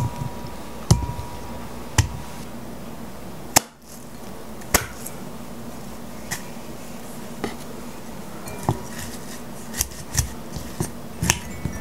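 A wooden muddler and lime wedges knocking against a glass mixing bowl as limes and mint leaves are muddled: scattered single sharp knocks and clinks, about one every second, a few close together near the end.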